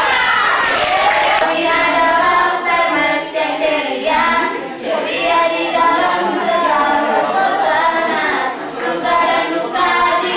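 A small group of young women singing a group cheer song together without instruments, after a second or so of group shouting at the start.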